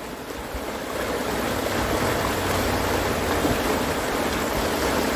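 River rapids rushing: a steady noise of fast-flowing water that swells a little about a second in.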